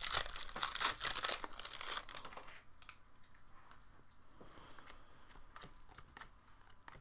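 Foil wrapper of a Panini Prizm basketball card pack crinkling and tearing as it is opened, for about the first two and a half seconds. After that, only faint soft clicks of the cards being handled and flipped through.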